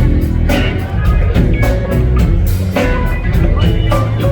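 Live rock band playing an instrumental passage: a heavy bass line, a steady drum-kit beat and guitar, with no singing.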